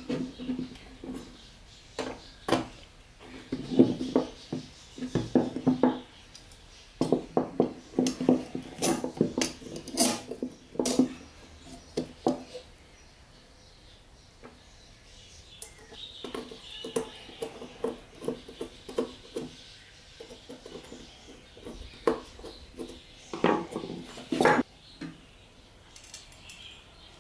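Hand assembly of a file holder's parts (steel file, clamping plate, screws, cast-aluminium handle) on a wooden workbench: a run of clinks, clicks and knocks as the metal pieces are handled, fitted and set down, some ringing briefly. The sound comes in clusters, with a quiet stretch a little before the middle.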